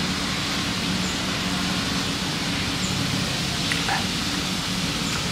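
Steady outdoor background hiss with a low hum under it, and a few faint soft clicks about four seconds in.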